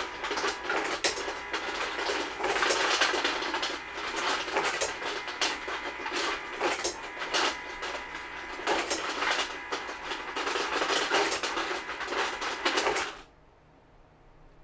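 Electric case feeder running, with brass .308 Winchester cases clattering and rattling continuously in its bowl as they are fed into the drop tube. The clatter stops abruptly about a second and a half before the end.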